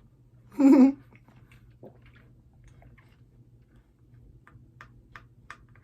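Eating sounds: faint mouth clicks and smacks while chewing, with one short, loud vocal sound a little over half a second in.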